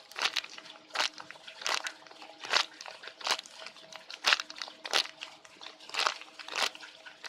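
Rustling crinkles as a squishy toy is handled and squeezed, about ten short crunchy sounds at an uneven pace of roughly one a second, over a faint steady hum.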